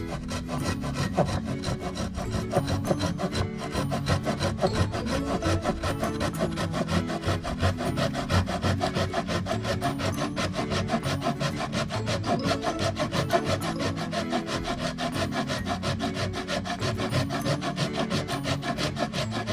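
Wood being cut with a hand saw in quick, steady back-and-forth strokes, over background music.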